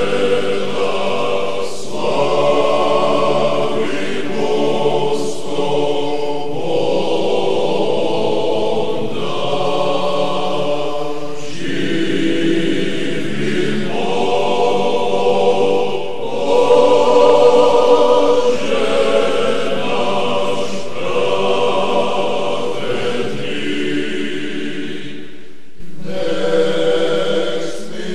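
A men's choir singing Orthodox chant unaccompanied, in slow, held chords and phrases of a few seconds each. The singing breaks off sharply for a moment about 26 s in and resumes on a new phrase.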